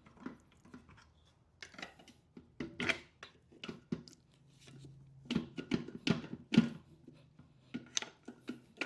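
Irregular metal knocks, clinks and scrapes as a pry bar works a transmission free from its engine, thickest and loudest a little after halfway.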